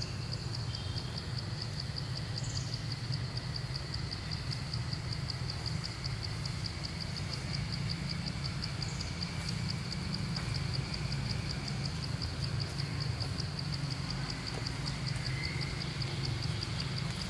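Insect chirping in a high-pitched, steady, evenly pulsed rhythm, over a steady low rumble.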